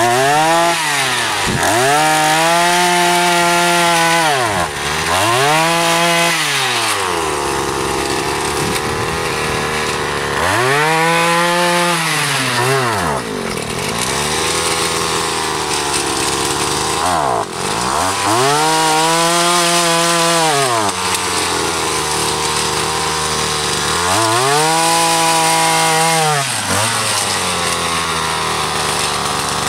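Petrol earth auger engine revving up to drill planting holes in soil and dropping back toward idle between holes, about six times.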